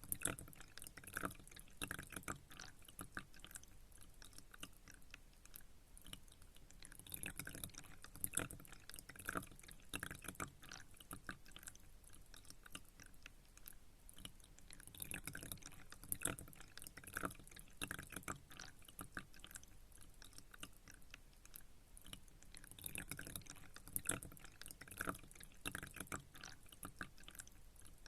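Pond water dripping and trickling in small irregular plops, bunching into busier clusters about every seven or eight seconds.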